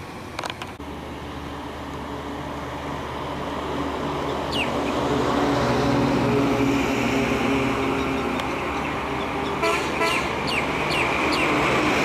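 City road traffic, with a vehicle engine's steady drone growing louder partway through. A few short high-pitched chirps come near the end.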